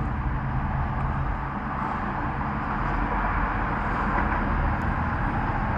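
Steady outdoor background noise with a low rumble, the kind typical of road traffic.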